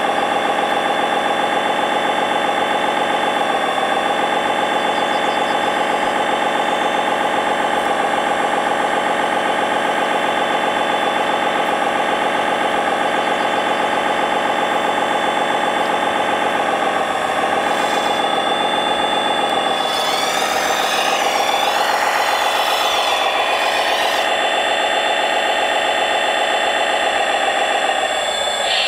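1/14-scale RC construction machine running, a steady mechanical drone. A higher, wavering whine that glides up and down joins for a few seconds about two-thirds of the way through.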